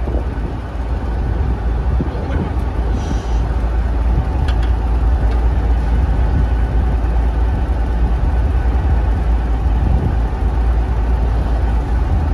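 Fishing boat's engine running steadily, a low rumble with no change in speed.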